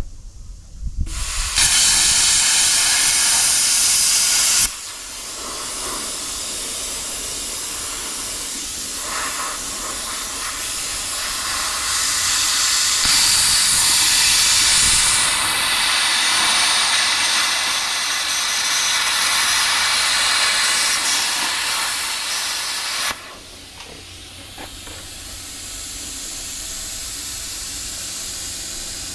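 Sand buggy being driven fast, heard mostly as a loud rushing hiss of wind over the microphone. The hiss jumps up about a second in, eases near five seconds, builds again, and drops off suddenly near the end.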